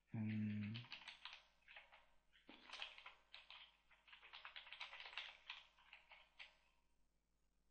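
Computer keyboard typing: quick runs of key clicks, stopping about six and a half seconds in. A brief low hum comes at the very start and is the loudest sound.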